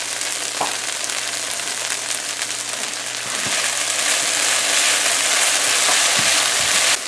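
Sliced okra and shrimp frying in a pan, almost done, with a steady sizzle. The sizzle grows louder about halfway through and cuts off suddenly near the end.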